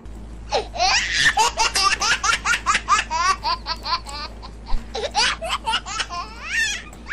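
Added laughter sound effect: a fast run of high-pitched 'ha-ha' laughs, a brief pause about four and a half seconds in, then a second run.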